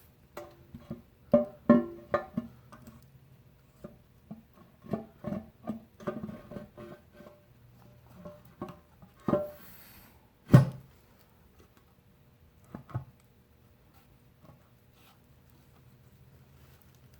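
Irregular metal clinks and knocks, some with a short ringing tone, as the Lift-All hydraulic pump is worked into its cast reservoir. They come thick in the first ten seconds, the loudest about ten seconds in, then thin out to a few clicks.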